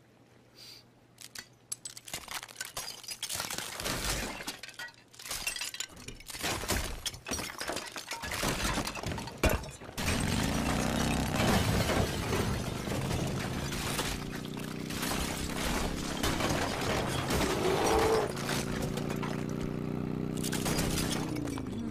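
A run of crashing and breaking sounds, like glass shattering. About ten seconds in, a steady pitched hum comes in under more clatter.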